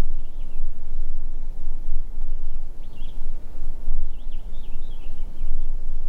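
A steady low rumble, with a small songbird chirping short quick phrases about three seconds in and again around four to five seconds in.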